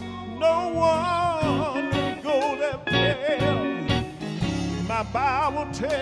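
Male gospel singer singing with a wide vibrato over a live band, with bass notes and drum and cymbal hits underneath.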